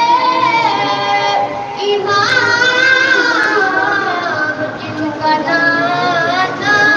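A high voice singing a devotional chant into a microphone, with long held notes that slide and bend in pitch and short breaks for breath.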